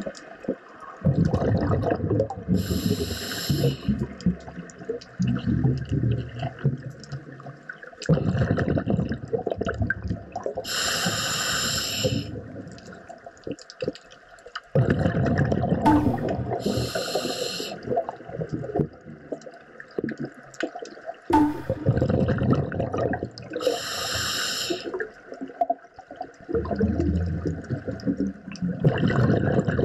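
Scuba diver breathing underwater through a regulator: four short hisses on the inhales, about six to seven seconds apart, with long stretches of bubbling and rumbling from the exhaled air between them.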